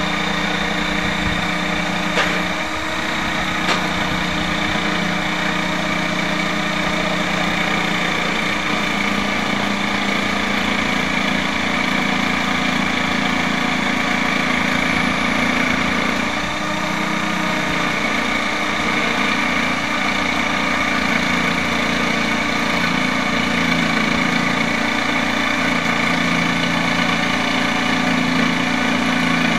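Corded electric jigsaw running steadily as its blade cuts through a plywood sheet. The level dips briefly about two and a half seconds in and again about halfway through.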